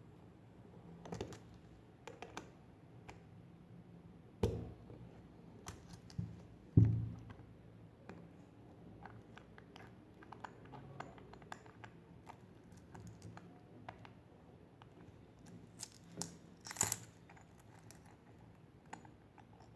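Kitchen scissor tips clicking and scraping against a metal watch case back as it is twisted loose, with scattered small clicks and a few louder knocks, the loudest about seven seconds in and a group of clicks near the end.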